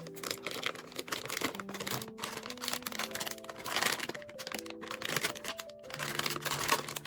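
Background music with held notes that change pitch every half second or so. Over it run many quick clicks and crinkling rustles, the sound of hands handling parts and packaging.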